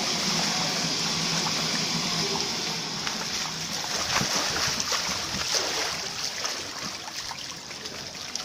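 Water splashing and sloshing in a shallow pool, churned by a child crawling and pushing inside an inflatable water-walking ball. A continuous hissing splash with small irregular slaps, growing gradually fainter toward the end.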